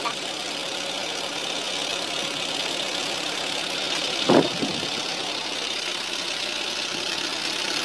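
A steady hiss of background noise, with one short knock about four seconds in as a loose brick is handled on the rubble beside the bottles.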